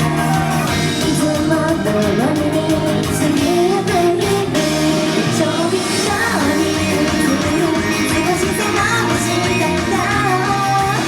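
Idol group performing live: singing over loud pop-rock music with guitar.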